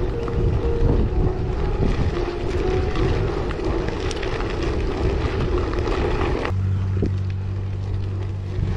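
Wind rush on the microphone and rolling noise from a gravel bike riding a dirt track, under background music with a simple melody stepping between a few notes. About two-thirds of the way through, the rushing noise cuts off abruptly, leaving the music with a steady low hum.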